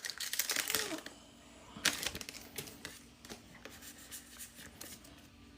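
Foil Pokémon booster pack wrapper crinkling and tearing open, with a dense run of crackles in the first second, a sharp snap about two seconds in, then scattered light rustles and clicks as the pack is handled.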